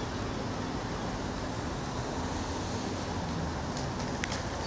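City street traffic: a steady hum and rumble of cars passing a tram junction, with a couple of sharp clicks near the end.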